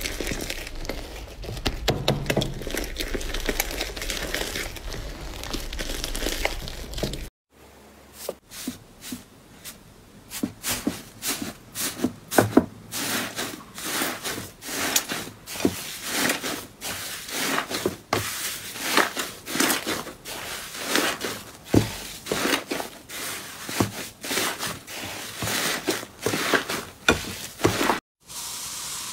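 Slime being squeezed and kneaded by hand with a dense sticky crackling. After a short break about seven seconds in, a thick pink slime is pulled and stretched, giving a run of sharp irregular pops and clicks, several a second.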